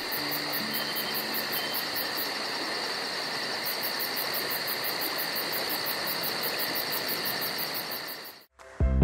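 Night insect chorus: crickets trilling steadily over a constant hiss, with a fast high pulsing on top. It cuts off near the end.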